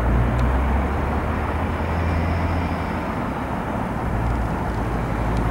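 Long CSX freight train of open-top cars rolling on the rails, a steady low rumble with a low hum underneath.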